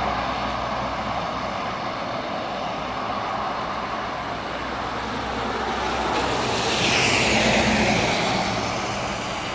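Steady hiss of traffic on a rain-soaked road. About six seconds in, a vehicle passes close by, its tyres swishing through the water on the road; the sound grows louder, falls in pitch and fades.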